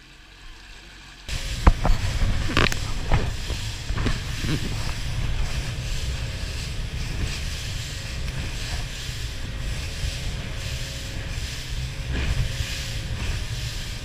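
Aluminium fishing boat under way at speed on open sea: a steady rush of wind, water and spray over a low engine rumble, starting abruptly about a second in. Several sharp knocks come in the first few seconds as the hull slaps into the waves.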